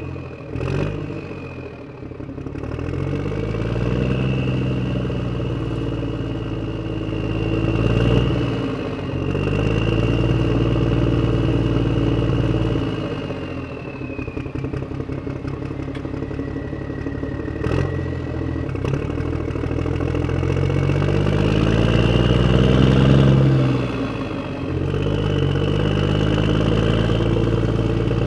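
Tractor engine sound effect, its pitch climbing and dropping several times as if revving up and easing off, with a steady thin high tone over it.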